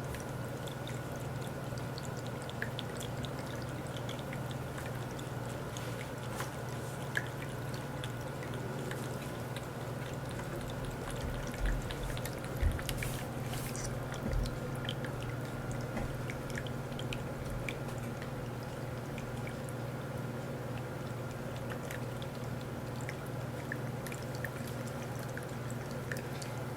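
PetAcc electric pet water fountain running: the small pump hums steadily under a continuous trickle of water, while a cat laps from the stream and the pooled water with faint ticks. A few low knocks come near the middle.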